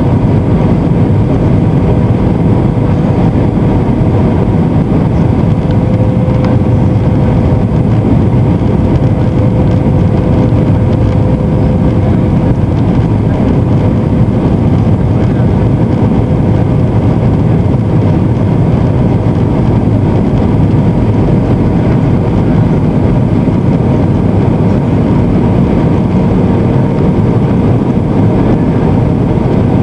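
Airbus A320 cabin noise from a seat over the wing: the jet engines and the airflow past the fuselage make a steady, unbroken rumble, with a faint steady whine above it.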